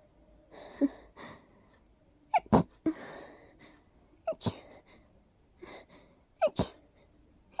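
A person sneezing rapidly, about one sneeze every two seconds, each a quick two-part burst with a short gasp just before the sneeze. It is an allergic sneezing fit brought on by smelling daisies, to which the sneezer is extremely allergic.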